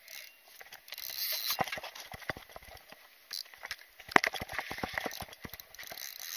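Irregular clicks and knocks of a spinning rod and reel being handled and worked, with rustling; one sharper knock comes a little after the midpoint.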